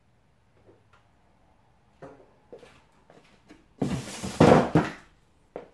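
Handling noise: a few light clicks and taps, then about a second and a half of loud rubbing and knocking as the camera is picked up and handled, and one last short knock.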